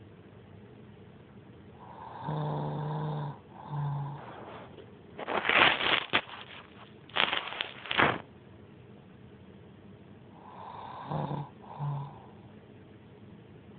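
A woman snoring in her sleep: a buzzy, rattling snore about two seconds in followed by a short one, then two louder, harsher noisy breaths in the middle, and another rattling pair near the end.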